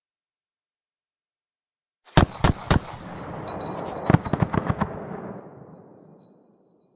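Mk44 Bushmaster II 30 mm chain gun firing two short bursts: three heavy rounds about two seconds in, then a quicker burst of about six rounds a second and a half later. A rolling echo follows and dies away over about two seconds.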